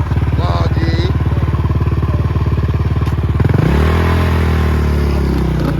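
Motorbike engines running: a steady, fast-pulsing idle. About three and a half seconds in, a louder engine note comes in, rises, then slowly sinks in pitch.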